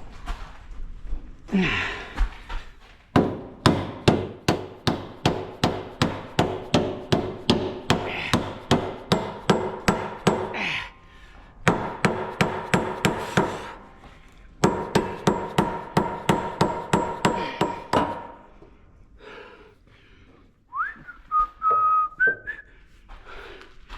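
A hammer striking metal again and again, about three ringing blows a second, in three runs separated by short pauses. Near the end a brief high whistle-like tone rises and holds.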